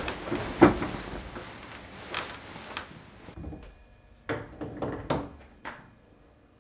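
A panelled interior door being handled: rustling and soft thumps, then several sharp knocks and clicks from about four seconds in.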